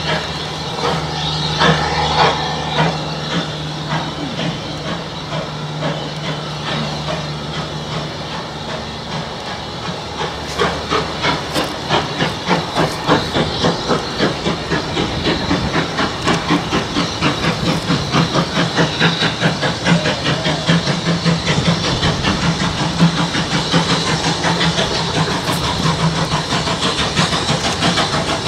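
GWR 57xx class 0-6-0 pannier tank steam locomotive approaching under steam. At first there is a steady hiss. From about ten seconds in, its regular exhaust beats come through and grow louder as it nears.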